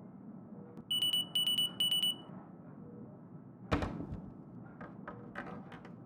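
An electronic alarm beeps three times in quick succession on a single high tone. About a second and a half later comes a single thump, then a few light clicks, all over a low steady hum.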